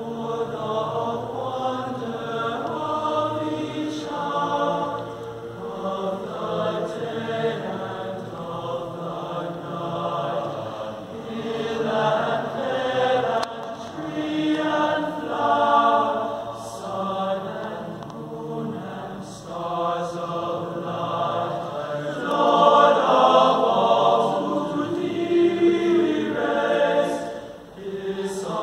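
Boys' chorus singing, coming in right at the start and growing louder past the middle.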